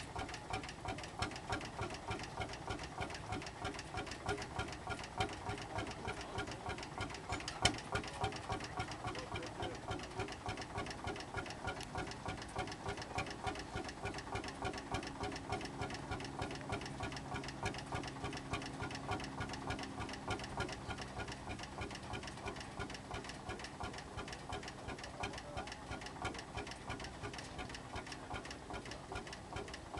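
Lanz Bulldog 25 PS tractor's single-cylinder two-stroke hot-bulb engine idling, a steady, even knocking beat.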